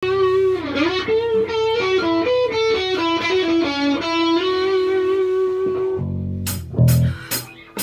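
Pop-rock music: an electric guitar plays a melody with bent notes, and about six seconds in a drum kit comes in with a low hit and steady sharp cymbal strokes.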